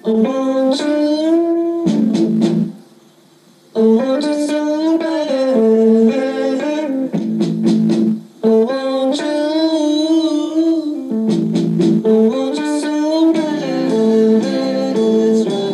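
Guitar music with a bending melody line, played back through a Montgomery Ward AM/FM/8-track/cassette player, with no bass below about 130 Hz. It drops out briefly about three seconds in.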